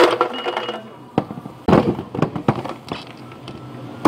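Ice cubes and smoothie ingredients dropped into a plastic blender jar: a few sharp clatters and knocks, about a second in and again around two seconds in.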